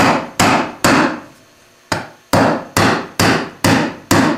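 Hammer driving nails into a western red cedar birdhouse kit, sharp ringing blows about two a second: three strikes, a pause of about a second, then a steady run of strikes.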